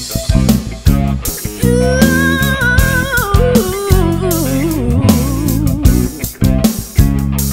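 Live gospel worship band playing an instrumental passage: bass and drum kit with a guitar melody that bends and wavers in pitch for a few seconds in the middle.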